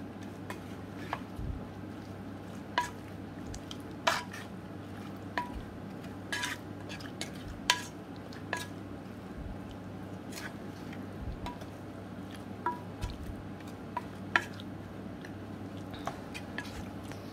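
Wooden spatula stirring raw pabda fish, onion and spices in a metal pot, knocking against the pot's side at irregular moments, roughly once a second, each knock ringing briefly. A steady low hum runs underneath.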